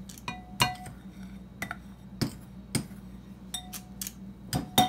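A metal spoon clinking and scraping against a glass mixing bowl: about nine sharp, irregular clinks, some ringing briefly, the loudest near the end.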